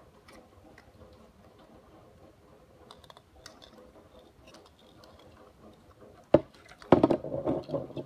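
Small clicks and ticks of hard 3D-printed plastic parts as an articulated robot figure is handled and its joints posed, with a sharp knock a little past six seconds and a louder spell of clattering handling noise near the end.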